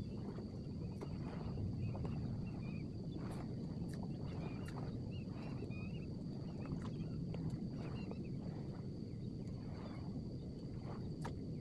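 Open-water ambience: a low, steady wash of wind and water noise, with faint bird chirps, a thin steady high whine, and scattered soft ticks and splashes.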